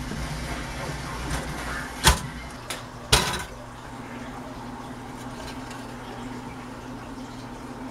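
Kitchen counter handling noises as bread is loaded into a toaster: two sharp knocks about a second apart near the middle, with a fainter tap between them, over a steady low hum.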